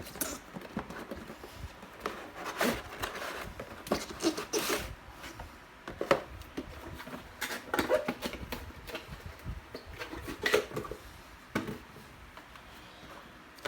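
Close-up handling noises: irregular clicks, taps and rustles, the loudest a few sharp knocks spread through, and a quieter stretch near the end.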